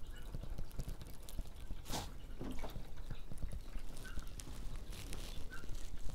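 Water from a garden hose trickling and dripping into the bottom tray under a seed flat, bottom-watering it, with faint scattered ticks and one brief louder noise about two seconds in.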